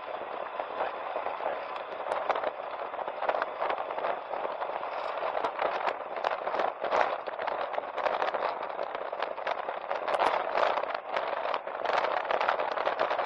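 Motorcycle tyres rolling over a loose gravel and dirt road surface: a steady crunching hiss with many sharp ticks and clicks of stones, getting denser and louder after about five seconds.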